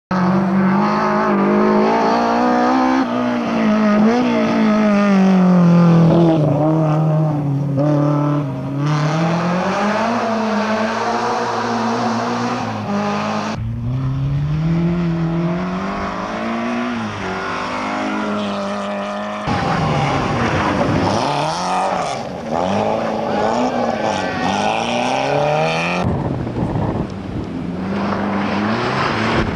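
Rally car engines revving hard, their pitch climbing and dropping again and again through gear changes. The sound changes abruptly three times, where shots are cut together.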